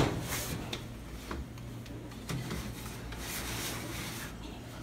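Metal baking pan scraping and rubbing along the wire rack of an electric oven as it is pushed in, after a sharp clack at the start.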